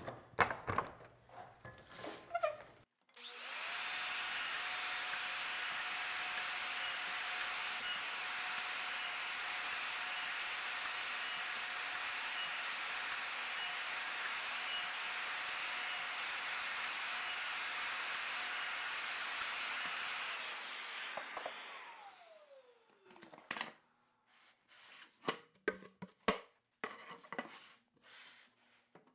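A plunge router boring shelf pin holes along a shelf-pin hole rail, running together with its dust extractor. It starts about three seconds in, runs steadily, and winds down with a falling whine about 21 seconds in. Clicks and knocks of clamps and the plywood workpiece being handled come before and after.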